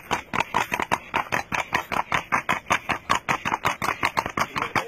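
Horse's hooves striking a paved road in a rapid, even clatter as the horse moves along at a quick gait.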